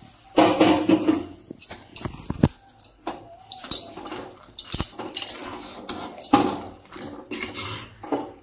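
Long-handled metal spatula stirring thick jujube pickle in a metal kadai, with irregular clinks and scrapes of metal on the pan.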